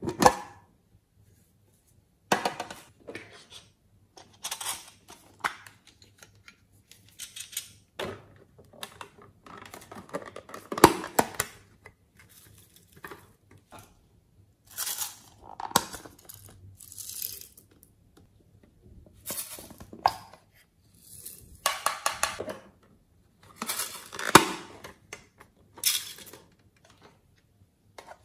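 Sprinkles and glitter being shaken and tapped out of small metal tins and plastic boxes onto slime in a glass dish. There are irregular bursts of rattling and tapping, with sharp clicks of the containers.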